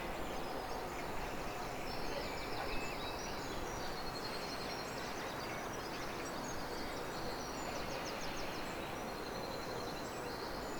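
Steady background noise with clusters of faint, rapid high-pitched chirps.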